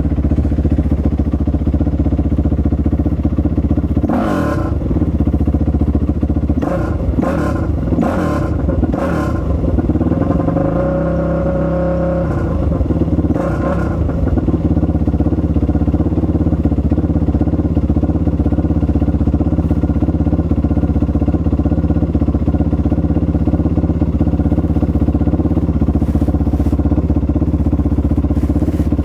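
Single-cylinder four-stroke 450cc off-road engine running steadily. Between about four and nine seconds in there are a few short throttle blips, and around ten to fourteen seconds the revs rise and fall before it settles back to a steady run.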